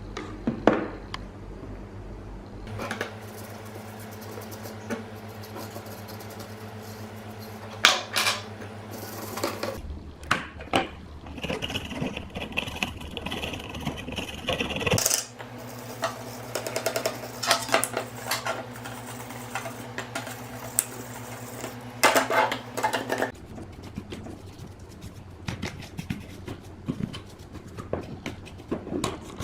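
Small metal parts and tools clinking, clicking and scraping on a workbench over a steady low electrical hum. The hum changes its tone abruptly a few times.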